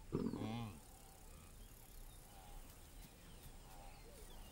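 A lion gives one short, low growl in the first second, followed by faint background sound.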